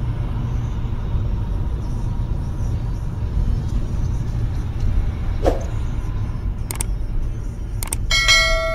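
Steady low rumble of a car driving on a snowy highway: road, tyre and engine noise picked up by a dash cam inside the car. A few sharp clicks come between about five and eight seconds in, then a ringing chime with several overtones starts near the end.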